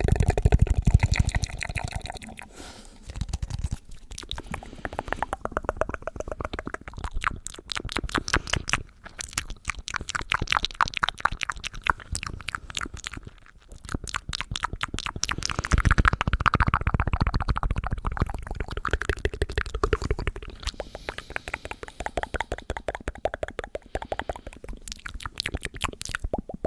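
ASMR mouth sounds: fast runs of wet clicks and pops from the lips and tongue, broken by a few short pauses.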